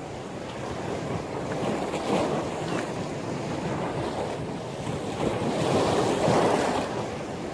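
Rough sea waves surging and breaking in a strong wind, with wind buffeting the microphone; two louder surges, about two seconds in and again near six seconds in.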